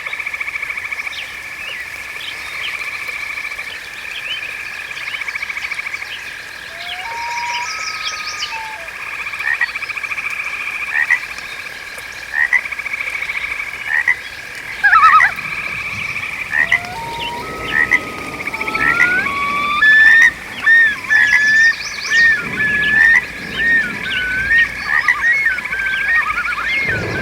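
Chorus of many frogs croaking: steady pulsing trills throughout, with short sweeping calls on top that come thicker and louder in the second half.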